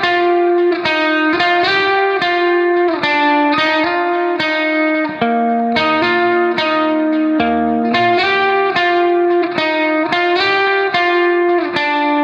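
Background music: a plucked guitar playing a melody of single notes, about two to three a second.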